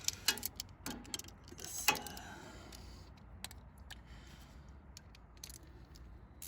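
Scattered light metallic clicks and taps of hand tools and a hose clamp being worked on a radiator hose, with one sharper knock about two seconds in.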